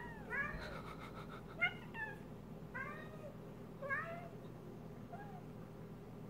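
A cat chirping and chattering at a moth it is watching overhead: a string of about seven short, bending chirps, fading out toward the end, the prey-watching call of a cat that can't reach its target.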